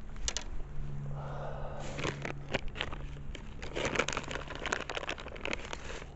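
Plastic bags crinkling and rustling as a hand rummages through them, in a dense run of irregular crackles that is busiest from about two seconds in.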